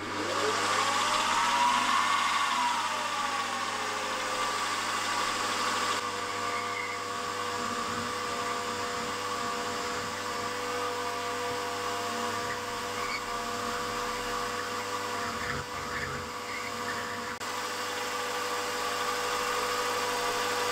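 Milling machine spindle running with a slot drill cutting into a metal conrod blank, giving a steady machine whine.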